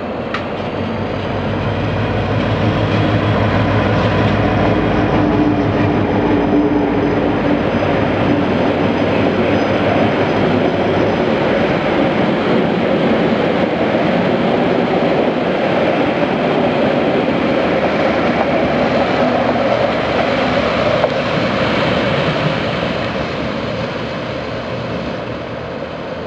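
Diesel locomotive passing close, its engine humming, followed by a rake of passenger carriages rolling by on the rails. The sound fades as the train draws away near the end.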